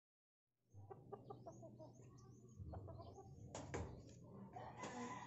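Silence for the first moment, then an outdoor yard background of chickens clucking and birds chirping in short high calls. A few sharp clicks come about three and a half seconds in.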